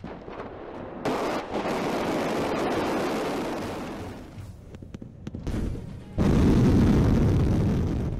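Two missile launches, each a deep rumbling roar of rocket exhaust. The first cuts in about a second in and fades away. The second, louder one cuts in suddenly about six seconds in.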